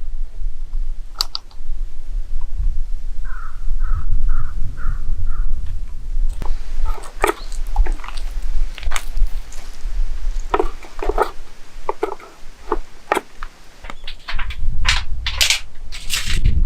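A bird calls five times in a quick, even series, over a steady low rumble. Then come many sharp clicks and crackles, densest near the end.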